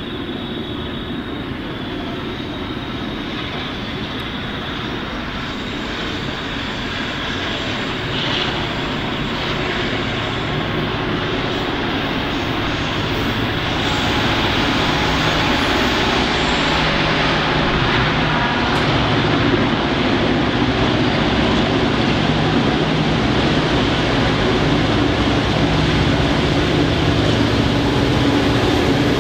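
Two diesel-electric freight locomotives, G class G515 and B class B74, approaching and passing into the station under power. Their engines drone steadily and grow gradually louder as they near, the sound strengthening about halfway through.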